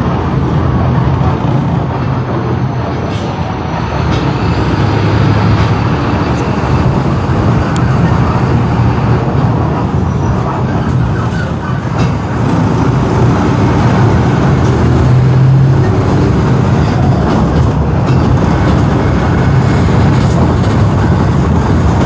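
2013 Marcopolo Senior microbus on the move, engine and running noise steady and loud, with its brakes being applied as it slows.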